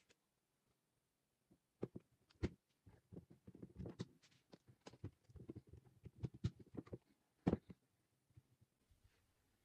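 Plastic panels of a perforated plastic magazine file holder being handled and fitted together: a run of light clicks, taps and rubbing, with one sharper click near the end.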